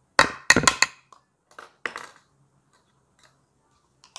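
Plastic vegetable chopper parts knocked against a plastic plate to shake out freshly chopped onion and cabbage. Three or four sharp knocks come quickly in the first second, with another just before two seconds in and a few faint taps after.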